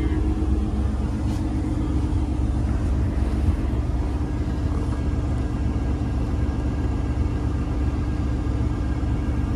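Peterbilt semi truck's diesel engine idling steadily, a low even rumble heard from inside the cab.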